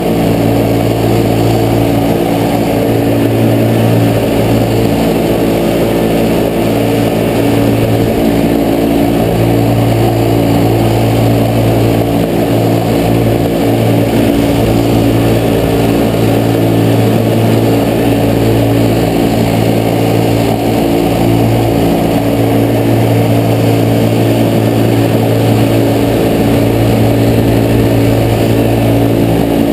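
Engine of a small 120-class youth racing snowmobile running at high, nearly steady revs under racing throttle. The pitch dips briefly a few times as the throttle eases.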